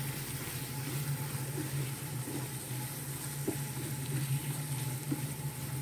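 Spiced chicken pieces sizzling in a frying pan as they are stirred with a silicone spatula, with a few faint knocks of the spatula against the pan. A steady low hum runs underneath.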